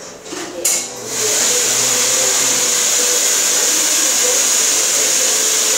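A hand-held hair dryer is switched on about a second in and then blows steadily: a loud, even hiss with a high whine. A short knock comes just before it starts.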